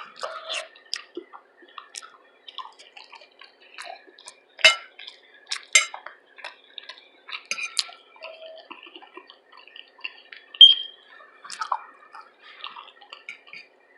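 Close-miked mukbang eating: scattered wet mouth clicks and smacks of chewing, with a few louder sharp clicks.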